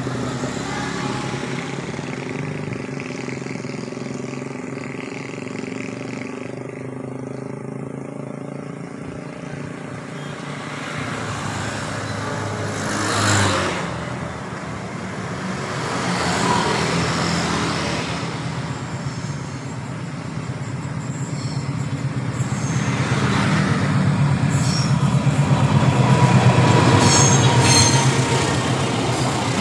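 Diesel-hauled Argo Parahyangan passenger train approaching and passing, its engine hum building to the loudest point near the end as the train goes by. Motorbikes on the road pass with brief louder swells about halfway through.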